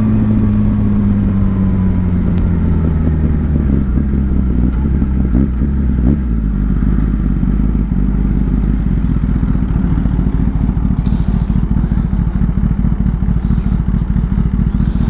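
Kawasaki ZX-10R inline-four motorcycle engine running under way. Its note falls gradually over the first several seconds and then holds steady, with a heavy fluttering wind rumble on the microphone.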